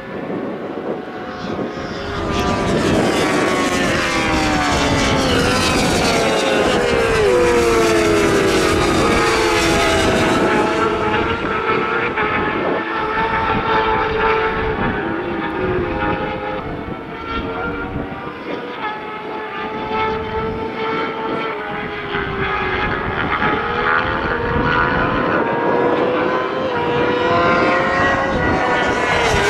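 A pack of superbike and supersport racing motorcycles at full throttle, several engines heard at once, each one's pitch falling as it passes. It is loudest from a couple of seconds in, eases off a little past the middle, and swells again near the end as more bikes come by.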